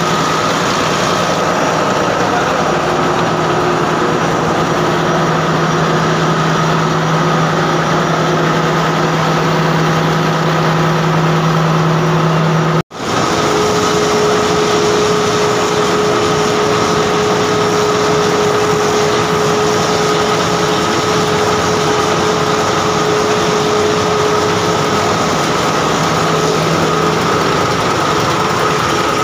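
Loud, steady din of marine diesel engines running in a ship's engine room, with a steady hum over the noise. About halfway through, the sound cuts out for an instant and resumes with a higher-pitched hum.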